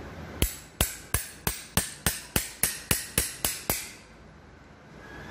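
About a dozen sharp metal clicks, evenly spaced at about three a second, from a hand tool working on the end of a copper refrigerant pipe to expand it to take a same-size pipe. The clicks stop about three-quarters of the way through.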